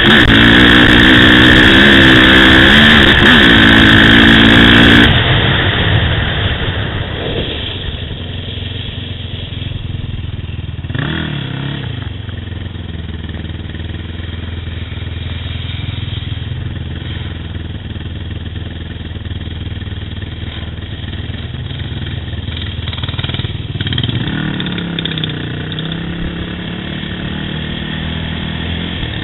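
ATV engine running hard and revving up and down for about five seconds, then cutting suddenly to a quieter engine idling and burbling, blipped up briefly twice, about eleven seconds in and again near twenty-four seconds.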